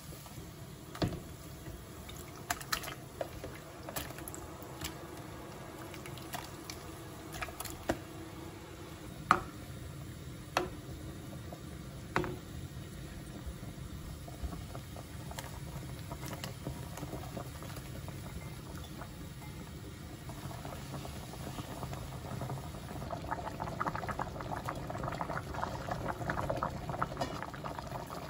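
Water bubbling in a pot as chicken pieces parboil, with scattered sharp knocks and clinks through the first half. The boiling thickens and grows louder over the last several seconds as the pot comes back to a rolling boil.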